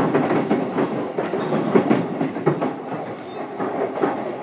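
Running noise inside a JR East E233-7000 series electric train's motor car, a steady rumble with the wheels clattering over the rail joints in quick, irregular clicks.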